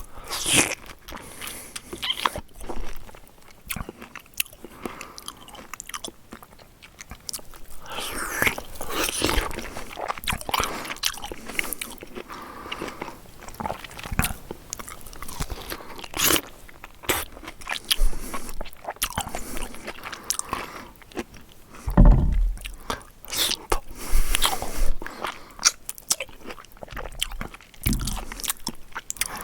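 A person eating and slurping up close: irregular wet chewing and biting noises with smacks and slurps.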